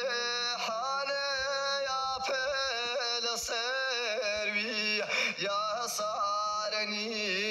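A voice singing a Hawrami song in long, wavering held notes over a steady low tone.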